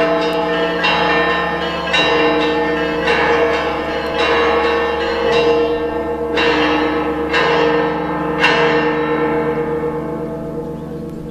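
Church bells ringing, struck about once a second with the tones ringing on into each other. The last stroke comes about eight and a half seconds in, and the ringing then dies away.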